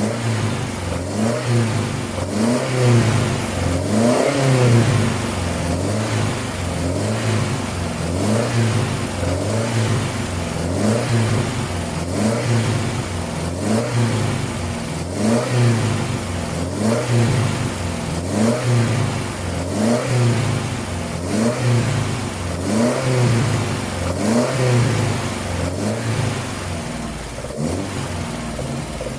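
Mitsubishi Astron 2000 four-cylinder engine of a 1985 Sigma running, the throttle blipped about every two seconds so the revs rise and fall in a steady rhythm.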